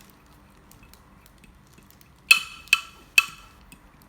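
A utensil clinking against a plate three times in quick succession, each strike ringing briefly, as the coloured slime mixture is stirred.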